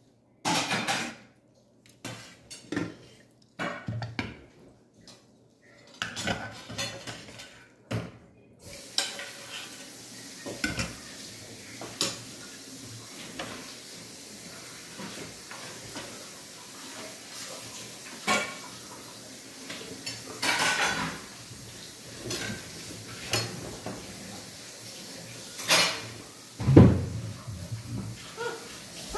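Metal spoon clinking and scraping on a stainless-steel plate during eating, in irregular separate clicks and knocks, over a faint steady hiss from about nine seconds in. A louder knock comes near the end.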